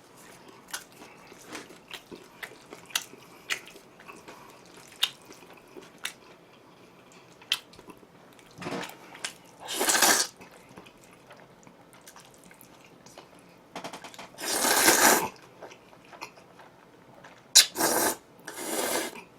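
Close-miked eating: soft wet chewing and mouth sounds with many small clicks, and several louder noisy bursts lasting up to about a second and a half.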